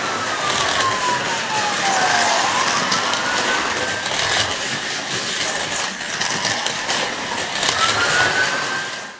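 Wailing police-style siren, its pitch sliding slowly down and back up and rising again near the end, over a dense steady hiss with scattered clicks.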